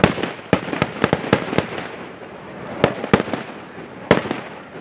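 Fireworks going off: about ten sharp bangs, coming in quick succession in the first second and a half, then a few more spaced out, over a steady hiss of burning and crackling.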